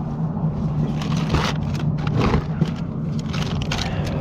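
A steady low engine drone, with scattered light clicks and rustles over it.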